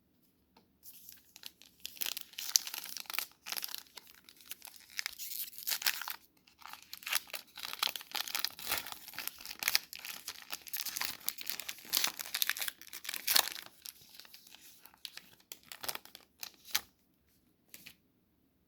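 A foil trading-card pack wrapper being torn open and crinkled by hand. The crackling runs almost without break from about a second in, dying away near the end.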